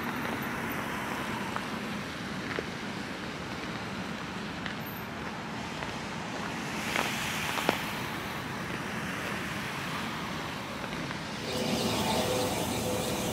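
Steady outdoor background of distant road traffic, a broad even hum with a few faint clicks. About eleven seconds in it grows louder and a steady engine-like hum joins in as the scene reaches the roadside.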